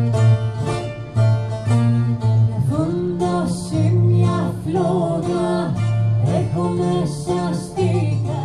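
Rebetiko band playing: plucked bouzouki and electric bass in a steady rhythm, and a voice begins singing about three seconds in.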